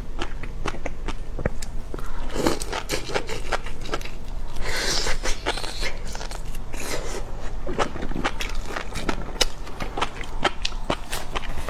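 Close-miked eating of seafood: a dense run of crackling, crunching clicks of biting and chewing, with a short noisy rush about five seconds in.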